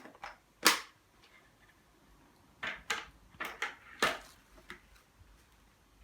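A series of sharp clacks: two near the start, a quick cluster of about five between two and a half and four seconds in, and a fainter one a little before five seconds.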